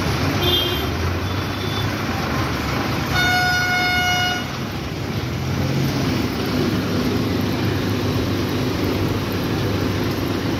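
A vehicle horn honks once, a steady tone lasting about a second and a half, about three seconds in, over steady engine and traffic noise in slow-moving toll-plaza traffic. Fainter short honks come from further off in the first two seconds.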